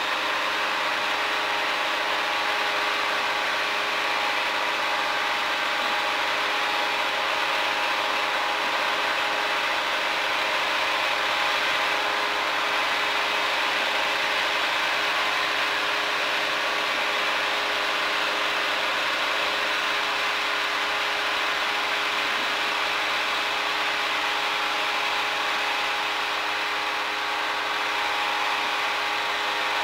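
Cockpit noise of a Cirrus single-engine piston airplane on final approach: the engine and propeller give a steady drone with a few constant tones, over rushing airflow.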